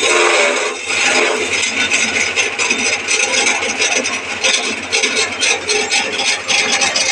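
Chaff cutter running and chopping dry hay fed into it by hand: a loud, steady, dense rattling and scraping clatter.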